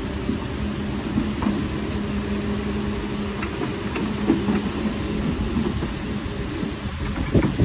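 Excavator running: a steady low engine rumble with a held tone that fades out about two-thirds of the way through, and a few short knocks, the loudest near the end.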